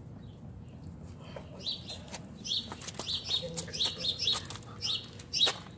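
Small birds chirping: a string of short, high chirps that starts about a second and a half in and repeats several times a second.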